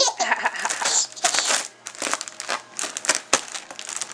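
Bubble wrap crinkling and crackling as it is handled, in a quick string of short, irregular bursts.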